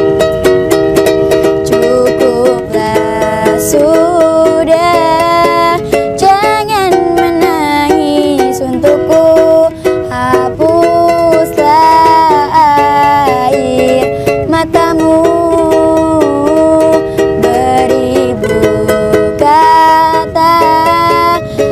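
Music: a song with plucked strings and a melody line that bends and glides in pitch, playing without a break.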